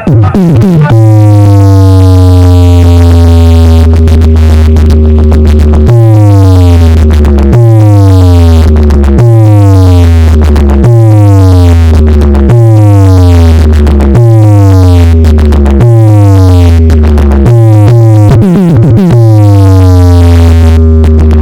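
Sound-check music at full volume on a DJ speaker system: heavy synth bass notes, each with a falling pitch sweep. After one long note the notes repeat about every second and a half, and a long one returns near the end.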